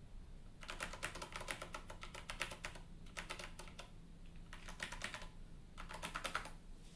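Typing on a split ergonomic mechanical keyboard: rapid key clicks in four bursts separated by short pauses.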